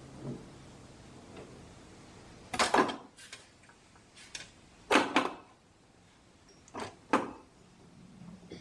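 A series of sharp knocks and clatters in short clusters, the loudest about halfway through, from parts and tools being handled while the mower deck belt is refitted.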